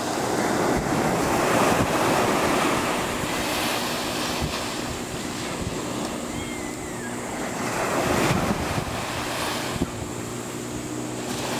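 Small waves breaking and washing up a sandy beach, the rush of surf swelling twice, about two seconds in and again about eight seconds in.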